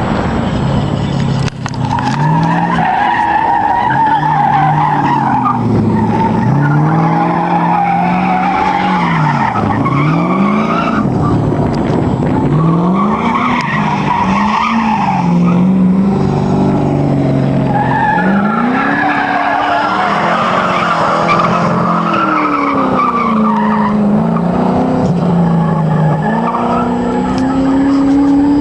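Ford Fiesta engine revving up and down over and over while the tyres squeal in long skids as the car is drifted on a skid pan. It ends on a rising rev.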